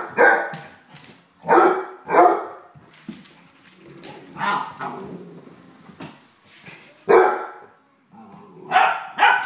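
Dogs barking in play as a Basset Hound and an Italian Spinone puppy play-fight: about seven loud, short barks at uneven gaps, with a few fainter ones between.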